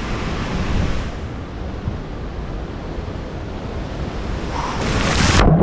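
Ocean surf breaking with wind buffeting the microphone, swelling louder near the end.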